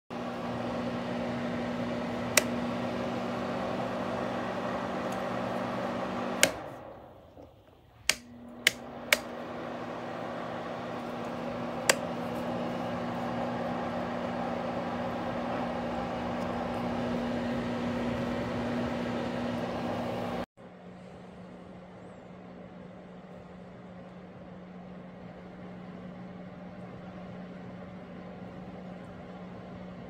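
Andily electric space heater's fan blowing with a steady hum, and several sharp clicks as its control knobs are turned. About six seconds in the fan stops and winds down, then starts up again a couple of seconds later. From about twenty seconds in there is a quieter steady fan whir with a lower hum.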